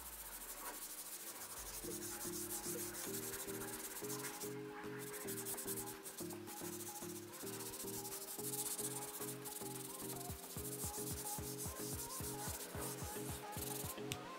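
Hand-held bristle detailing brush scrubbing a car's steering wheel in quick back-and-forth strokes, a steady scratchy rubbing. A low, stepping music melody plays underneath.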